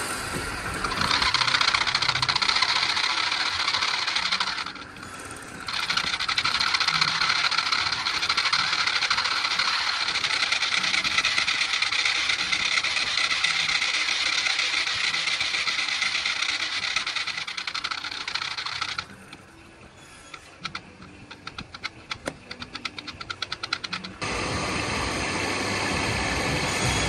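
Wood lathe spinning a wooden dish while a dark lump is held against its face, giving a steady friction hiss that dips briefly about five seconds in. Near the end the hiss stops, leaving quick light ticking, then a lower machine hum takes over.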